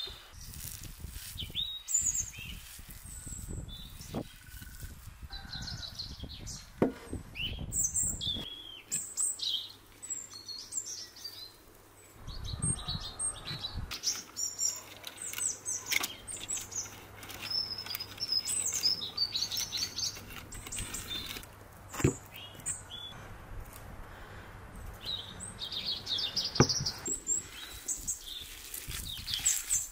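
Small birds chirping and tweeting on and off throughout, with soft handling sounds of raw minced meat being pressed onto mashed potato in the first several seconds and a few light knocks.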